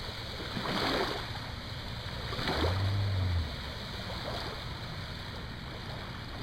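Water splashing and rushing against the hull of a small aluminum boat, with a couple of louder splashes about a second in and about two and a half seconds in.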